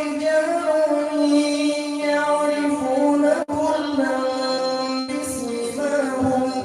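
A man reciting the Quran in the drawn-out melodic qira'at style, holding long sustained notes through a microphone, with one very brief break a little past halfway.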